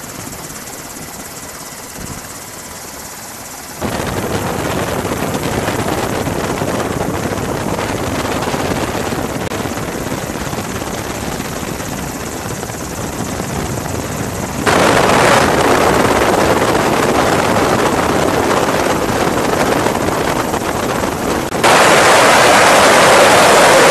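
Steady rushing noise of a helicopter in flight, with no clear beat or tone. It jumps abruptly louder about 4 s, 15 s and 22 s in.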